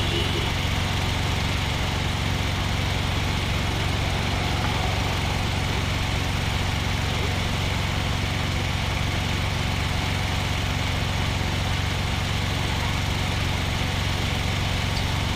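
Car engine idling with a steady, even low hum, under constant street traffic noise as the caravan of cars creeps along.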